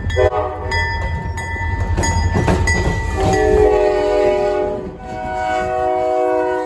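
Train horns over rolling train noise with wheel clicks: a short blast just after the start, then a multi-note chord horn sounded in two long blasts in the second half. The sound cuts off abruptly at the end.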